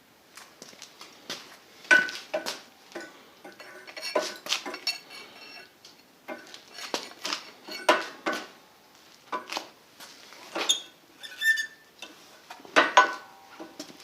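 Irregular clinks and clatters of metal objects knocking together, some leaving a short ringing note, in loose clusters every two or three seconds.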